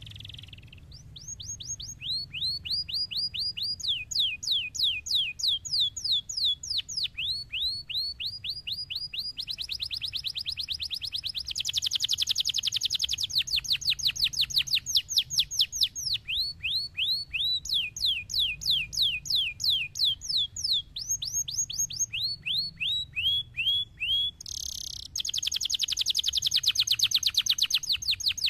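Domestic canary singing a long song of repeated-note runs: slower series of about four downward-sweeping whistled notes a second alternate with very fast high trills, with a brief break near the end.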